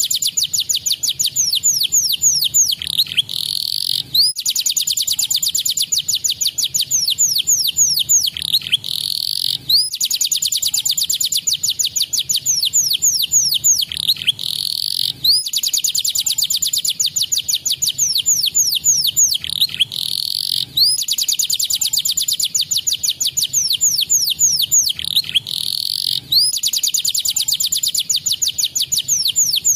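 Domestic canary singing long, fast, tightly packed trills of quick downward-sweeping notes, in phrases about five seconds long broken by brief pauses.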